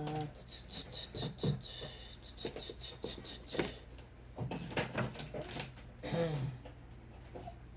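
Small hard objects being handled and rummaged through on a work surface, giving an irregular run of clicks, knocks and rattles.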